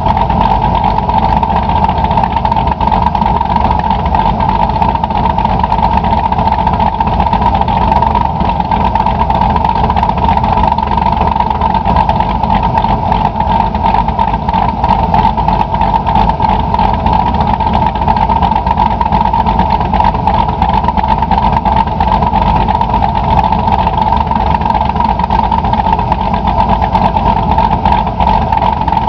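2013 Camaro SS V8 idling steadily through a Billy Boat dual-mode exhaust, with the rough idle of a Jannetty Racing rough-idle blower cam; it is not revved.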